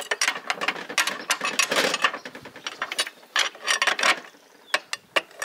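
Metal clicking and rattling of gears and a shift fork being worked by hand in the open six-speed gearbox of a U445 DT tractor, as a gear is engaged and moved. The clicks come in quick irregular clusters.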